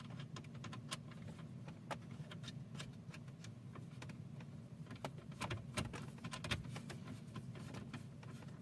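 Scattered small clicks and scrapes of a screwdriver backing a small screw out of the dashboard console trim, over a faint steady low hum.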